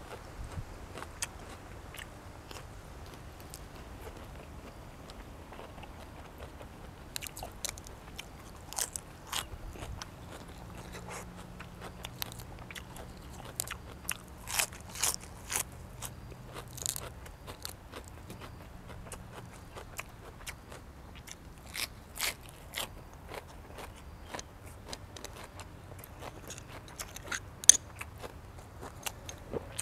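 A person eating close to the microphone: chewing and crunching, with scattered sharp clicks and crackles, the loudest near the end.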